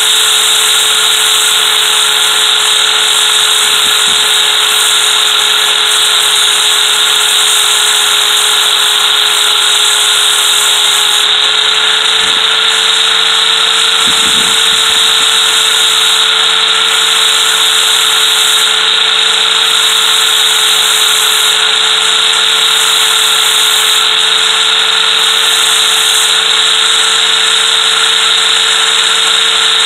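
Electric angle grinder running steadily as a steel ratchet handle is held against its wheel. There is a constant motor whine, and a high grinding hiss that is continuous at first and later comes and goes as the metal is pressed on and lifted off.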